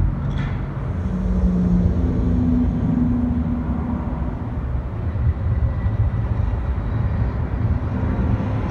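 Steady low rumble of street traffic and city noise, with a low hum coming in briefly about a second in and fading out by three and a half seconds.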